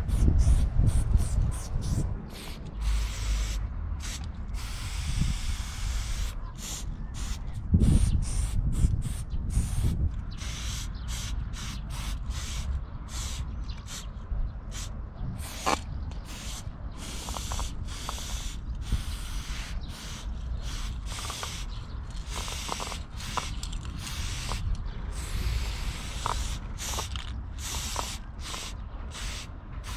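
Aerosol spray paint can spraying in many short bursts, starting and stopping every second or so, over a low rumble.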